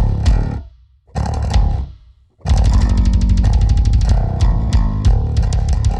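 Recorded music test sample with strong deep bass: two separate heavy hits that ring out, then from about two and a half seconds in a continuous passage over a fast, even beat of about eight strokes a second.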